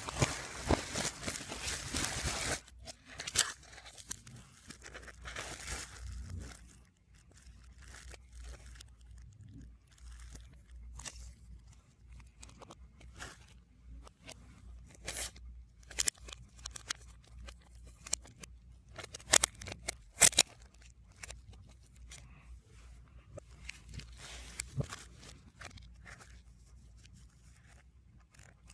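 Album packaging being handled, played backwards: a dense spell of crinkling and tearing for the first couple of seconds, then scattered rustles, scrapes and sharp clicks of plastic and card.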